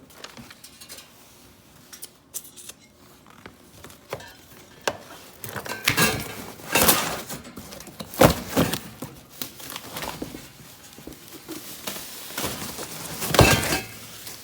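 Exhaust kit parts being handled and sorted: irregular knocks, clinks and clattering, with the loudest clatters about six to seven seconds in, at about eight seconds, and near the end.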